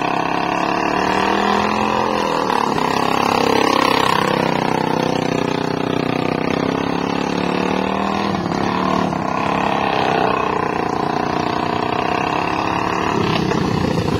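Racing lawnmower engine running hard, its pitch rising and falling as it revs. Near the end a lower, rougher engine note comes in.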